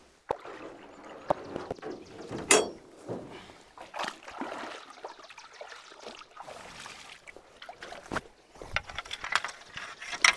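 Water splashing and sloshing around a small boat being paddled, with scattered knocks, one louder knock about two and a half seconds in.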